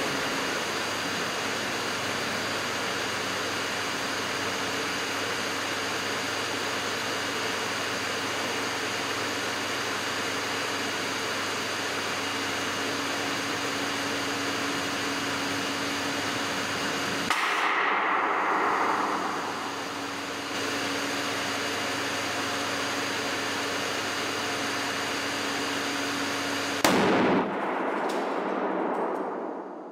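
An induction cooker runs with a steady hum and whine while it overheats the butane canister of a cassette stove set on top of it. About two-thirds of the way through, a louder rushing noise lasts a few seconds. Near the end, the overheated canister bursts with one sharp bang, followed by a fading rush of noise.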